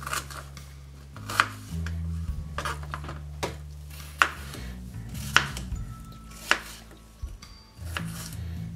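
Knife dicing a bell pepper on a cutting board: sharp, separate knocks of the blade on the board at an irregular pace of roughly one a second.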